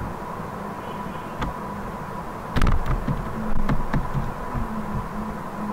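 A few sharp clicks from a computer mouse and keyboard as a spreadsheet formula is entered, the loudest cluster about two and a half seconds in, over a steady low hum and hiss.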